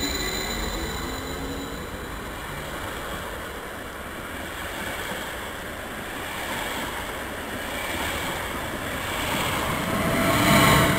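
Stadler FLIRT electric multiple unit (TILO RABe/ETR 524) pulling out of a station alongside the platform: steady rushing and running-gear noise, with a traction-motor whine rising in pitch as it gathers speed and getting loudest near the end.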